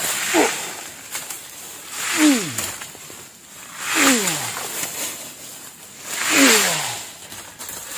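A long rattan vine being hauled through the forest undergrowth in repeated pulls about every two seconds, each pull a swishing rustle of vine and leaves with a short tone falling steeply in pitch.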